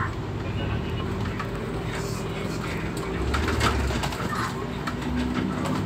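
Scania P360XT truck's engine running under way, heard inside the cab, with knocks and rattles from the cab and body as the truck bounces over a rough dirt hauling road.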